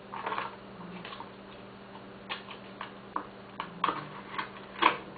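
Irregular light clicks and taps from small hard jewellery-making parts and tools being handled. A short clatter comes at the start and the sharpest tap near the end, over a faint steady hum.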